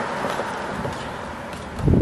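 Road noise of a passing car, a steady rush that slowly fades away, with a brief low thump on the microphone near the end.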